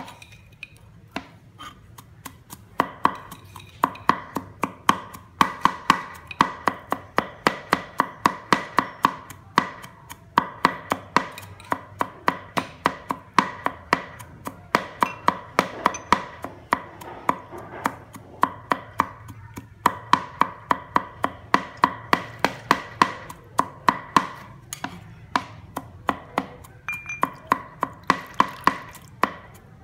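A knife chopping salad ingredients on a cutting board in a steady rhythm, about three strikes a second, each strike a sharp knock with a brief ringing tone.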